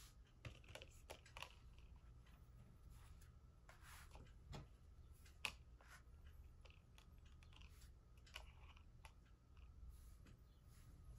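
Fingers handling and tapping an open metal steelbook case and its plastic disc tray, giving scattered soft clicks and taps with brief rustles. One sharper click comes about five and a half seconds in.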